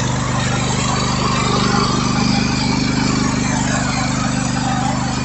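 Riding lawn mower's engine running steadily with a fast, even pulse, swelling a little about two seconds in and easing slightly near the end.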